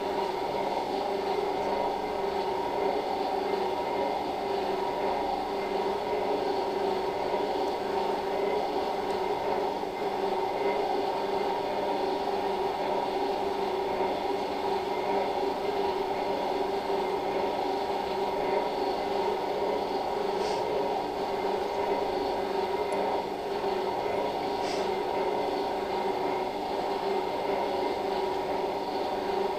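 Steady machine hum of operating-room equipment, with an even tone running through it. Two faint ticks come in the second half.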